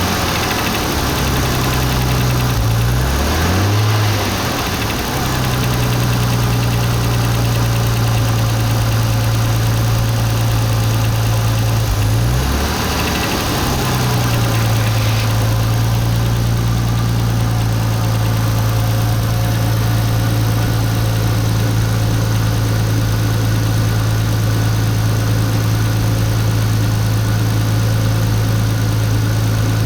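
Nissan RB25DET turbocharged straight-six idling steadily, its revs shifting briefly about three seconds in and again about twelve seconds in. It is the engine whose knock the owner traced to the turbocharger.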